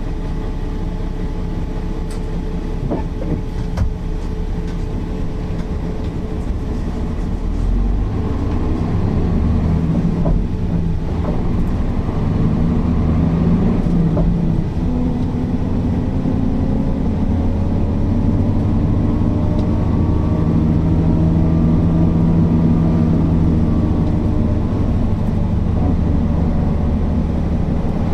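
Mercedes-Benz O408 bus's straight-six diesel engine running under way, growing louder about eight seconds in and then rising slowly in pitch as the bus gathers speed. A few light clicks early on.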